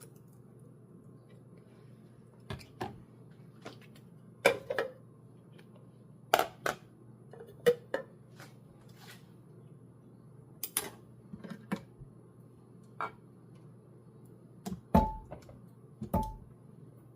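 Scattered clicks, taps and a few heavier knocks of kitchen items being handled and set down, over a faint steady low hum.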